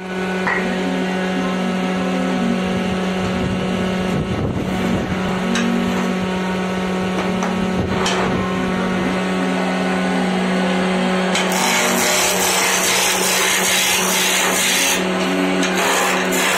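Electric wood lathe's motor humming steadily, with a few knocks as a square wooden blank is fitted between the centres. About eleven seconds in, a hand gouge starts cutting the spinning blank: a dense rushing hiss of wood being shaved over the hum.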